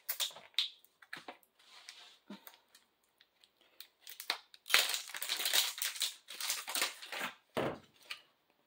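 A plastic tub of whipped cream being handled and scooped from, off camera: irregular crinkly scraping and plastic clicks, louder and busier from about five seconds in.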